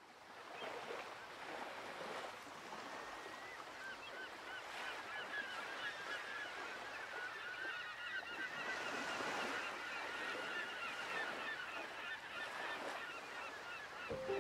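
A large flock of birds calling, many short overlapping calls, over a steady wash of surf.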